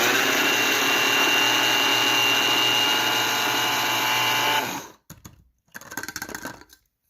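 Electric blade coffee grinder with a 200-watt motor and stainless steel blades, running at a steady whine for about five seconds as it grinds coffee beans. It then winds down and stops as the press-down lid switch is released.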